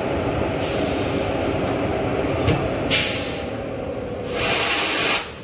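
Compressed air hissing from a locomotive's air brake hoses as they are coupled: a couple of metallic clicks, a short hiss about three seconds in, then a louder hiss about four seconds in that cuts off suddenly. Under it runs the steady hum of the electric locomotive.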